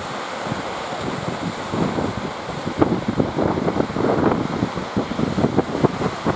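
Wind buffeting the microphone in irregular gusts over the wash of the sea.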